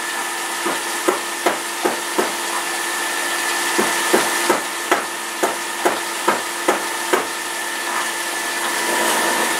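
Electric juicer running with a steady motor whine while carrots are pushed into it, with a series of sharp knocks, about two to three a second, as the carrot pieces hit the spinning cutter. The knocking stops about two seconds before the end, leaving the motor running alone.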